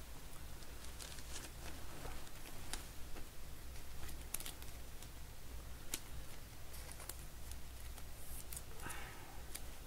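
Soft plastic rustling and scattered light clicks as a trading card is handled and slid into a clear plastic card sleeve, over a low steady hum.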